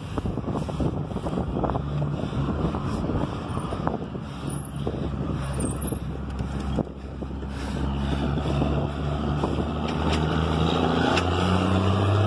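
Mercedes-Benz 1113 truck's six-cylinder diesel engine running on the road, its note climbing over the second half as the truck speeds up.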